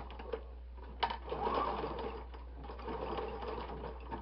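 Electric sewing machine stitching through fabric in short runs: it starts with a click about a second in, runs, dips briefly, runs again and stops near the end.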